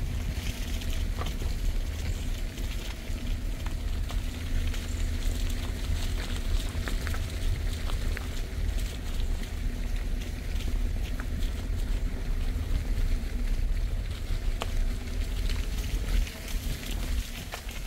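Steady low rumble of wind buffeting the phone's microphone, with a faint steady hum and scattered light ticks over it.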